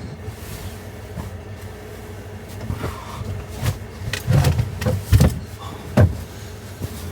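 A few sharp knocks and dull thumps, about four to six seconds in, from things being handled and moved, over a faint steady hum.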